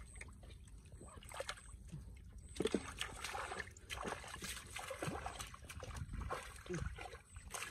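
Hands groping through shallow muddy water, sloshing and splashing it in irregular small bursts.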